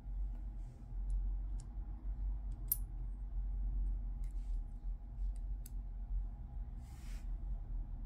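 Light, irregular metallic clicks as a small slotted metal ring is handled and fitted onto a Volkswagen Polo door lock cylinder, with a brief rustle about seven seconds in. A steady low hum runs underneath.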